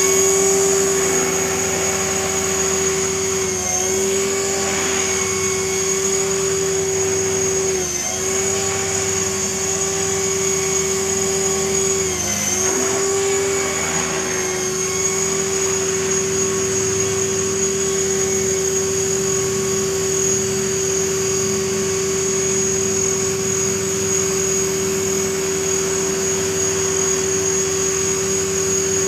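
Align T-REX 500 electric RC helicopter's motor and rotor blades running with a steady whine. The pitch dips briefly three times in the first dozen seconds as the helicopter comes down, then holds steady with the rotors still spinning on the ground.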